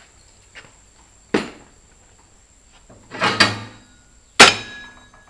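Separate metal knocks and clanks from handling the manual tire changer and its tools: one strike, then a short cluster, then the sharpest clank about four and a half seconds in.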